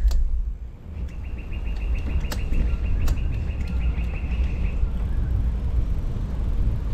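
Wind buffeting and road rumble on the microphone of a moving push bike. From about a second in to near five seconds a high, thin ticking buzz runs alongside it, then stops.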